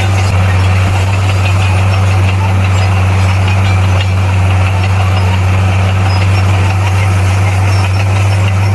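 Bulldozer's diesel engine running steadily, with a constant low drone and mechanical clatter that do not change.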